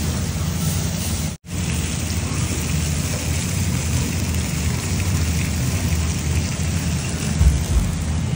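Chunks of beef steak sizzling on a hot stone plate as they cook: a steady, even crackling hiss. The sound cuts out for an instant about a second and a half in, and there is a low thump near the end.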